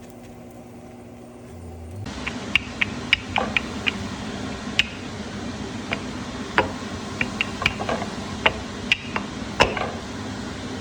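Ghee sizzling on a roti in a hot pan: a steady hiss that starts suddenly about two seconds in, with many sharp, irregular pops and crackles.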